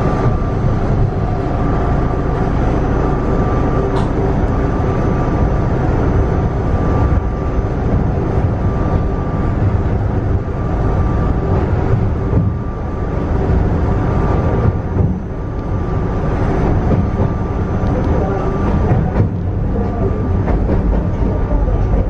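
Narrow-gauge Yokkaichi Asunarou Railway train running, heard from inside the car: a steady low rumble of wheels on the rails with a thin whine over it that comes and goes.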